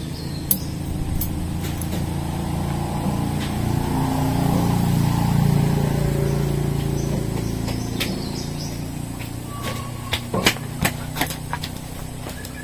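A motor vehicle's engine passing by: it grows louder to a peak about halfway through, then fades away. A few sharp clicks near the end.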